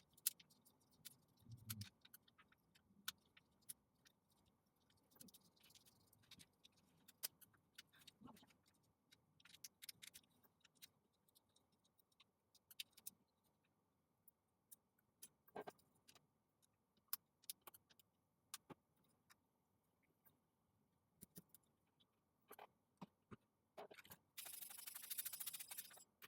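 Near silence broken by faint, scattered clicks and small scrapes of hand tools working at a MacBook display's cracked logo board. There is a short hiss-like scrape about two seconds before the end.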